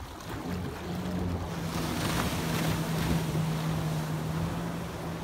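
A boat engine running at speed as a steady drone, with rushing water and wind buffeting the microphone. The rush of water and wind grows louder about two seconds in.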